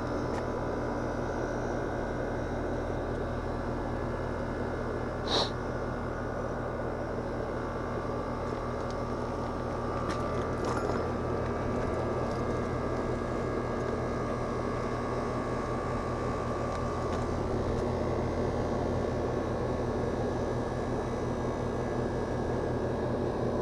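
Outdoor air-conditioner condensing unit running, compressor and condenser fan giving a steady low hum. A short high chirp sounds about five seconds in.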